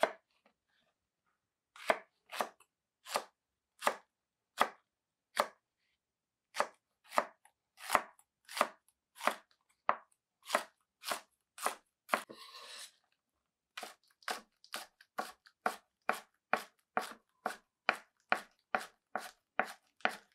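Chef's knife slicing green chilies, and near the end green onion, on a wooden cutting board: a run of separate knocks of the blade on the board, spaced out at first and about two a second in the second half, with a short scrape about twelve seconds in.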